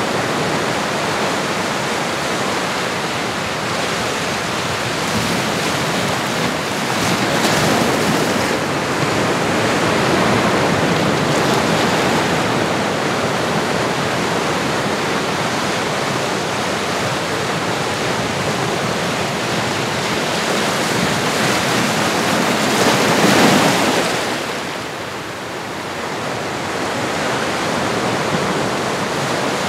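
Recorded ocean waves washing in, a continuous rush of surf that swells and eases, with the biggest wave about three-quarters of the way through followed by a short lull.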